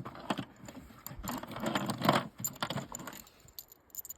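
Metallic clicking and rattling in short clusters, the sound of a rifle and its ammunition being handled.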